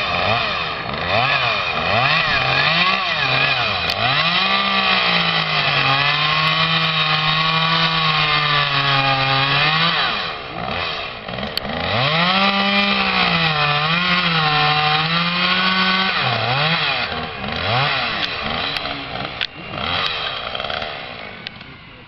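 Two-stroke chainsaw running up in the tree, revved so its pitch rises and falls, held at a steady pitch twice for several seconds at a time, then dropping away near the end.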